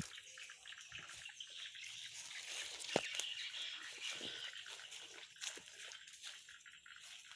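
Outdoor ambience: a steady high hiss with scattered light clicks and rustles, and a sharper crack about three seconds in.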